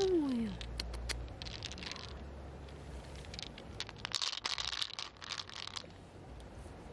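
Pearls clicking and clattering against each other and the mussel shell as handfuls are set down, densest from about four to six seconds in. A short falling vocal sound at the very start.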